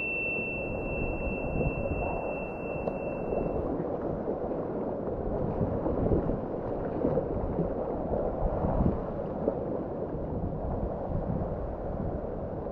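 Rushing whitewater: a steady noisy wash with irregular splashes. A thin steady high tone sounds over it for the first few seconds and then stops.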